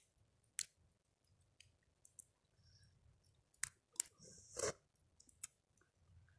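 Faint, irregular clicks and short crackles, a few sharp ones scattered through, with a slightly longer crackle about two thirds of the way in.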